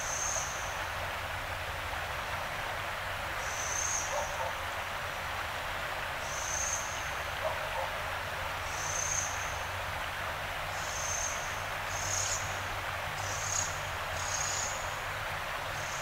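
River water rushing steadily. Over it, a bird's short, high-pitched note repeats every couple of seconds, coming faster near the end.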